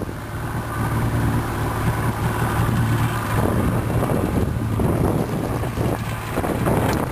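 Motorboat under way: the motor runs with a steady low drone while water sprays and splashes against the hull, with wind on the microphone.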